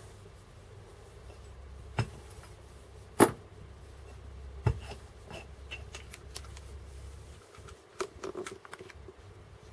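Metal clicks and knocks from a screwdriver and small screws on a steel core drill adapter as the two retaining screws are snugged in: three separate knocks, the loudest about three seconds in, then a quick cluster of small clicks near the end.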